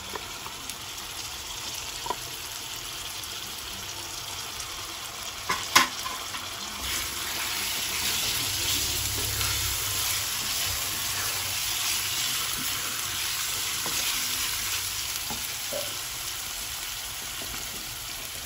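Raw chicken pieces sizzling in hot oil and masala paste in a frying pan as they are stirred in with a wooden spatula. One sharp knock comes about six seconds in, and the sizzle grows louder about a second later.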